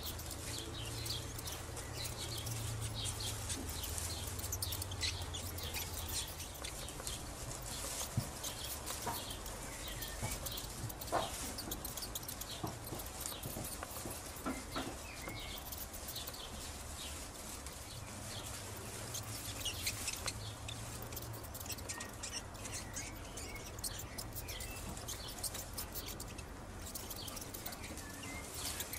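Chickens clucking and small birds chirping now and then, over dry straw rustling with many short crackles.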